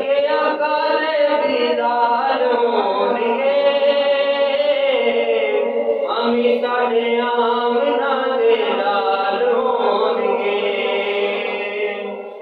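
A man singing a naat, an Urdu devotional song in praise of the Prophet, unaccompanied into a microphone. He holds long, ornamented notes, and the phrase trails off at the end.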